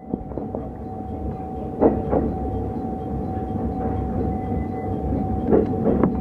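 JR Hokkaido 711-series electric train heard from its cab, rolling into a station: a steady running rumble with a constant hum, and the wheels knocking over rail joints in quick pairs about two seconds in and again near the end.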